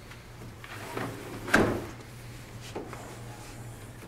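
Second-row seat of a 2014 Chevrolet Traverse being folded down flat: a soft click, then the seatback lands with one sharp thud about a second and a half in, followed by a smaller knock.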